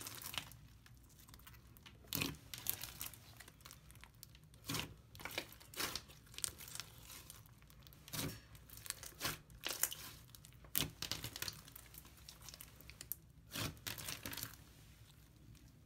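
Hands pressing, poking and stretching a thick pink slime mixed with small foam beads, giving irregular sticky crackles and pops that come in clusters as the slime is worked.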